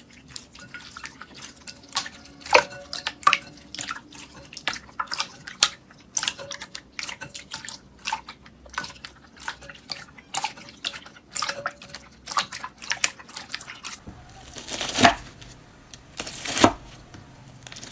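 Slime being squeezed and poked by hand, giving a run of small wet clicks and pops. About fourteen seconds in the background changes, and a few louder crackling squelches follow.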